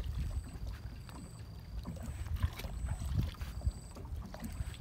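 Small wooden fishing boat on the river: a low, uneven rumble of water and wind against the boat, with scattered small knocks on the hull.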